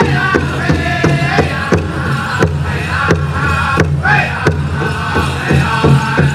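Powwow drum group singing a chicken dance song over a steady big-drum beat, about three strokes a second.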